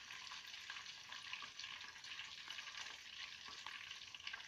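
Flour-dredged tilapia sizzling in hot oil in a frying pan, a steady crackle with fine pops.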